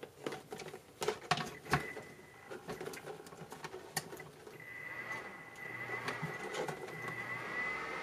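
Sharp clicks and knocks as the Alrocket mini electric fan heater is plugged in and switched on. About four and a half seconds in, its small fan motor starts with a steady high whine over a rush of air that grows a little louder and holds.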